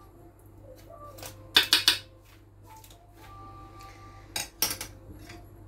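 Metal fork clinking against dishes: a quick run of three clinks about one and a half seconds in, and two more a little past four seconds.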